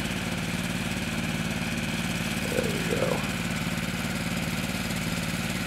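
Small gasoline engine of a suction gold dredge running steadily at a constant speed.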